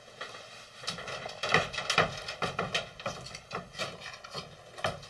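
An animal's claws scrabbling on a screen door's mesh as it climbs, a run of irregular scratches and rattling clicks.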